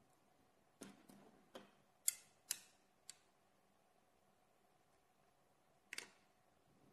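Sharp metallic clicks of 17 mm steel balls and magnetic rings snapping against each other as the magnetic structure is pressed and adjusted by hand: a quick run of about six clicks in the first three seconds, then one more about six seconds in.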